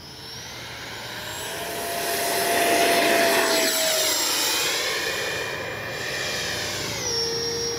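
The 80 mm 12-blade electric ducted fan of a Freewing Mirage 2000 V2 RC jet spools up to a high whine for the takeoff run and climb-out, growing louder for about three seconds. Near the end the whine drops to a lower pitch.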